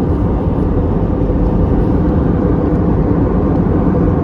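Steady low roar inside an Airbus A320neo airliner cabin in flight: engine and airflow noise, even and unchanging.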